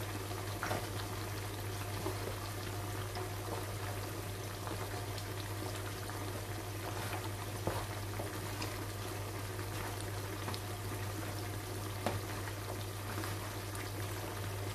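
Meat sizzling and bubbling in its juices in a frying pan, a steady hiss, with a few short clicks from a wooden spoon stirring pasta salad in a bowl. A steady low hum runs underneath.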